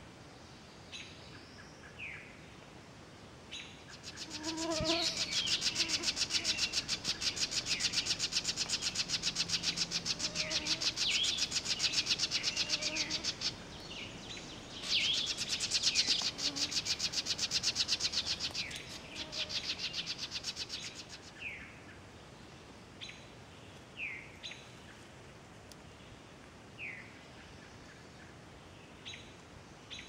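Songbirds calling in a forest, short falling chirps every second or two. From about four seconds in, a loud, rapid, high-pitched rattling buzz goes on for most of the next seventeen seconds, broken twice briefly, then stops.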